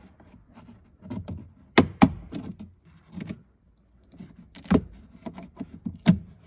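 Plastic clicks and knocks of an Audi A3 front door trim panel being pried off its retaining clips with a pry tool: a run of sharp snaps, the loudest about two seconds in and again near five and six seconds.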